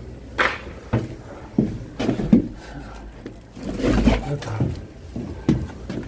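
Irregular thumps and knocks, about eight in six seconds, of bundles of firewood being handled and dropped in and out of a truck's metal cargo box.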